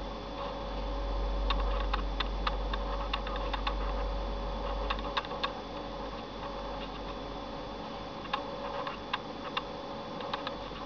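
Small plastic button clicks, irregular and often in quick runs of several, as buttons are pressed to move through media-center menus, over a steady electrical hum.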